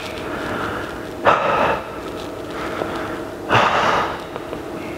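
A man breathing out hard in short bursts, twice about two seconds apart, with the effort of each rep of single-leg hip raises on a Swiss ball.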